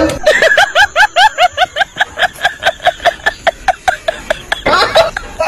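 Comic sound effect: a rapid run of short, squeaky notes, each rising in pitch, about five a second, with a louder noisy burst near the end.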